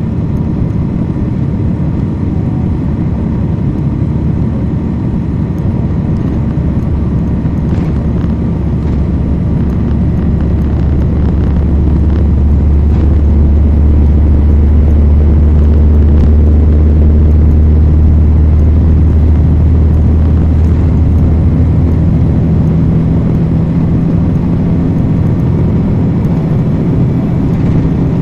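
Cummins ISL9 diesel engine of a NABI 40-foot transit bus, heard from inside at the back of the bus, running with a deep drone that swells louder around the middle and eases off toward the end.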